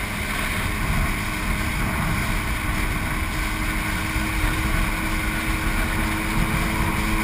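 Jet ski engine running steadily at speed, with a constant drone, while wind buffets the microphone and water rushes past the hull.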